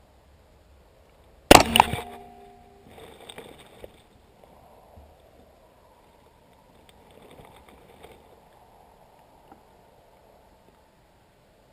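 A single suppressed rifle shot from a Mk12 Mod1 (5.56 mm) about a second and a half in: one sharp crack that dies away within about a second, with a short ringing tone after it. Fainter knocks and rustles follow.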